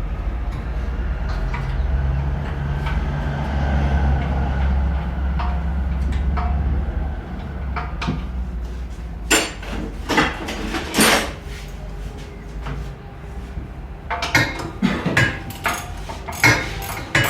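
Generator running with a steady low hum that dies away about eight seconds in. Scattered sharp metal clanks follow, then a quick run of metallic tapping and clinking near the end.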